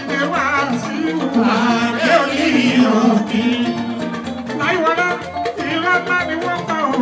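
A man singing fuji music into a microphone, his voice in long wavering lines over a live band that includes electric guitar.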